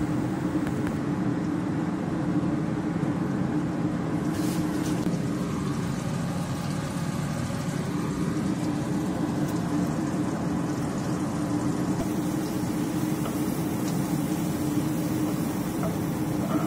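Steady low hum of the stove and kitchen fan running, over dried shrimp and garlic frying in oil in a wok. A faint click about four seconds in.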